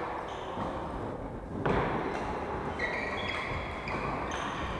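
Court shoes squeaking on a wooden badminton court floor in a series of short high chirps, most of them in the second half. One sharp smack comes about a second and a half in.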